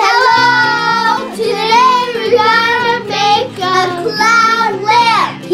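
Children singing a short tune with instrumental backing.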